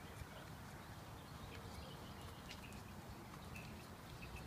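Faint outdoor walking sounds: light footsteps and dogs' paws on the ground, over a steady low rumble, with scattered small clicks and a few short faint chirps near the end.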